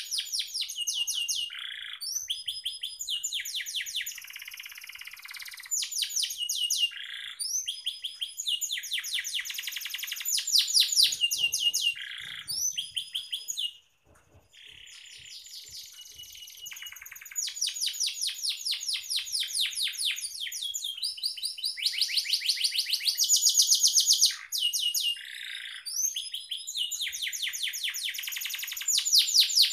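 Domestic canary singing a long, vigorous song: runs of fast, high trills of rapidly repeated notes, one roll after another. The song breaks off briefly about halfway through, then carries on.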